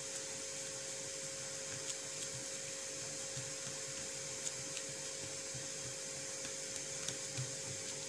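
A steady hum and hiss with a faint held tone, like a running appliance, under a few faint soft taps of fingers patting rice-flour dough flat on a banana leaf.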